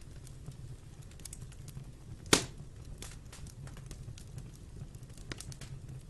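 Wood fire crackling in a fireplace: irregular small pops and ticks over a low steady rumble, with one loud sharp snap a little over two seconds in.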